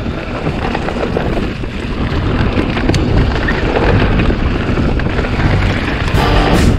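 Wind buffeting the microphone, a steady low rumble without speech. Music comes in near the end.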